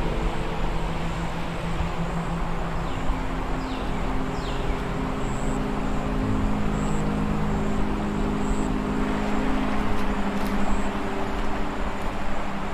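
Low droning film score of held tones that shift in pitch every few seconds, over a steady rushing noise of creek water, with three short falling chirps about three to four seconds in.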